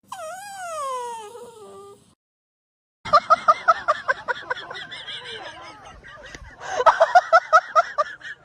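A dog whining: a wavering whine that falls in pitch over about two seconds, then after a short pause a long run of quick, rapid yips or whimpers, about five a second.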